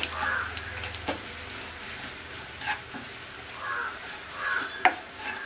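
Wooden spoon stirring and scraping chilli powder through hot oil in a nonstick frying pan, with a light sizzle from the frying spices. A sharp click near the end.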